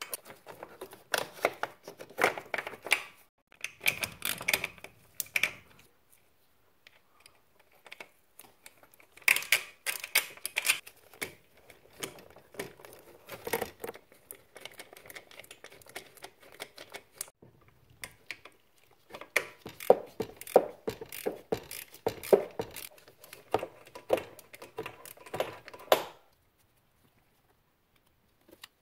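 Small clicks, taps and rattles of metal and plastic parts as gloved hands work the carburetor and its fittings, coming in irregular clusters with short pauses.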